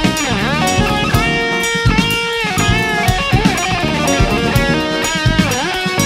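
Instrumental jazz-rock fusion band playing live: an electric guitar lead of held, bent notes with vibrato over drum kit and bass guitar.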